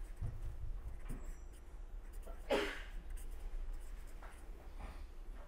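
A pen scratching across paper as words are handwritten in cursive, over a steady low hum. There is one short, louder sound about two and a half seconds in.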